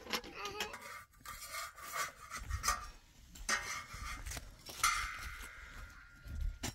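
Glass tea glasses and a metal tray clinking and rubbing as they are rinsed in a plastic basin of water. In the second half there is a low rumble, and a steady high tone holds for the last two seconds or so.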